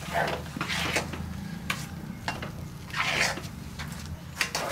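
Thick finger millet dough (ragi kali) being stirred and scraped with a spatula against the sides of an aluminium kadai: a few irregular scraping strokes, the loudest about three seconds in, over a low steady hum. The dough has thickened and is in its last minutes of cooking.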